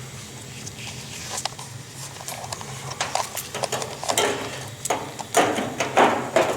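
Clattering and knocking of sheet metal being handled, growing busier and louder from about halfway through: the gas water heater's burner access cover being fitted back on. A steady low hum runs underneath.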